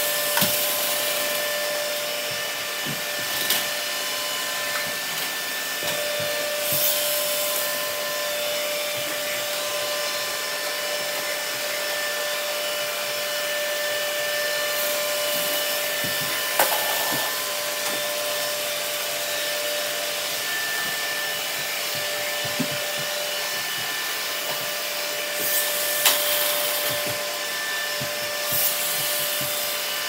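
Several robot vacuums running at once on a hardwood floor: a steady whirring hiss with a few held fan tones, broken now and then by short knocks and clicks.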